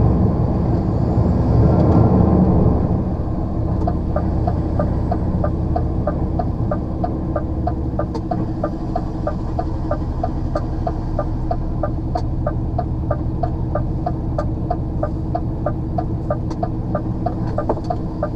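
A lorry's diesel engine running, working harder for the first three seconds as it pulls away, then settling to a steady run. From about four seconds in, a steady ticking of two to three ticks a second, the turn indicator.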